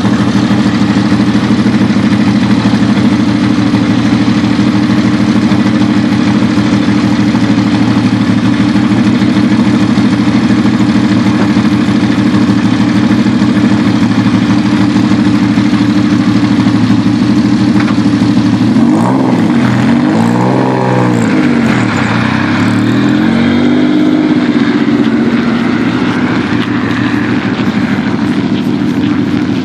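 Lancia Stratos rally car's V6 engine idling steadily, then revved sharply a few times about two-thirds of the way through and driven off, its pitch rising as it accelerates away.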